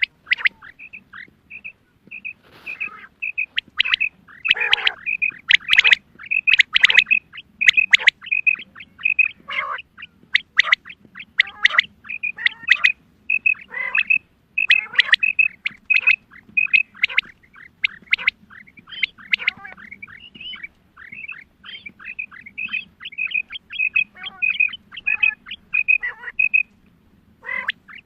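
Female common quail calling: a rapid run of short, high chirping notes, several a second, mixed with louder downward-sweeping calls. A faint steady hum lies underneath.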